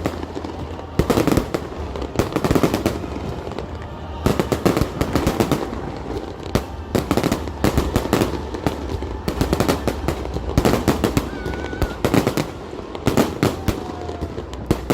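Fireworks going off: many sharp bangs and crackles in irregular rapid clusters, with brief lulls between them.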